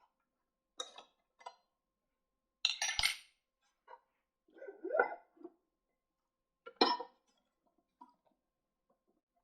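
A handful of separate clinks and knocks of small hard objects being handled, the loudest about three seconds in, with a short scrape about five seconds in.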